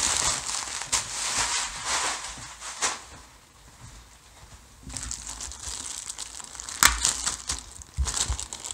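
Plastic bubble wrap crinkling and crackling as it is pulled apart and handled, the wrap clinging to itself. It goes quieter for a couple of seconds in the middle, then resumes with a few sharp snaps near the end.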